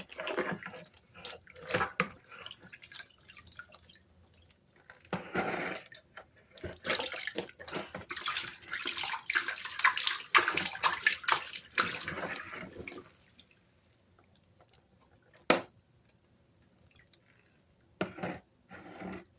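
Water splashing and dripping as Dell keyboard parts are washed by hand, with irregular small clicks. A longer run of splashing comes in the middle, and a single sharp click about three quarters of the way through is the loudest sound.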